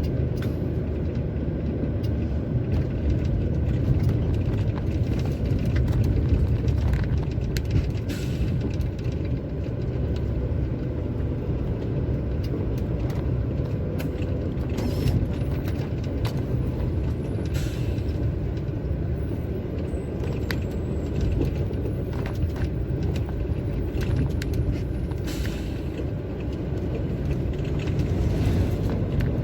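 Inside a moving truck's cab: steady engine and road rumble, with scattered light clicks and rattles.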